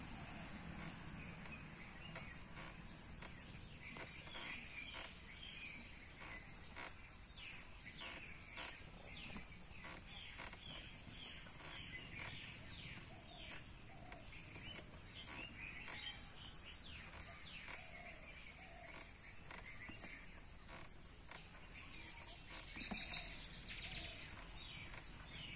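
Quiet rural outdoor ambience: many birds giving short, falling chirps over a steady, high-pitched insect drone.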